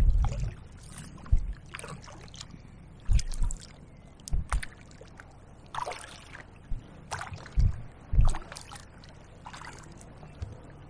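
Kayak paddle strokes: the blades dipping and splashing in the water at an uneven pace, with dull low thumps between some of the strokes.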